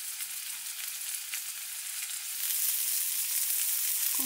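Venison backstrap and asparagus frying in olive oil in a cast iron skillet: a steady sizzle that grows louder about two and a half seconds in.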